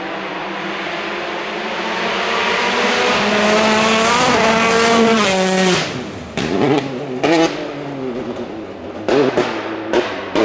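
R5 rally car's turbocharged four-cylinder engine at full throttle on a gravel stage, its pitch rising steadily for about five seconds over a hiss of tyres on gravel. Around six seconds in the revs drop sharply as the driver lifts, followed by a series of short, sharp bursts of revs.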